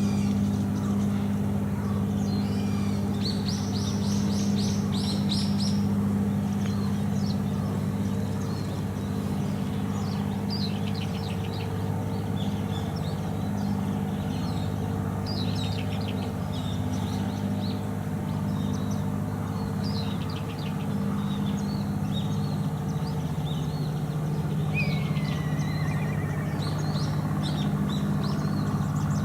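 An engine idling steadily as a low hum whose pitch drops slightly about two-thirds through, with small birds chirping over it and one call gliding down near the end.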